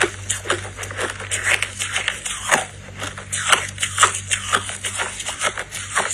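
Crushed purple ice being bitten and chewed, a dense run of sharp, irregular crunches and crackles several times a second.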